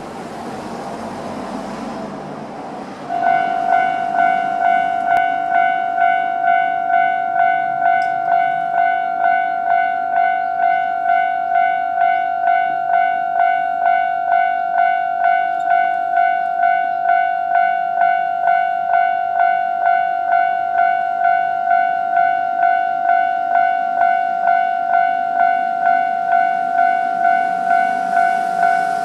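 Japanese railway level crossing's electronic warning bell, starting about three seconds in: a steady ringing tone pulsing about twice a second. Before it there is a steady noise.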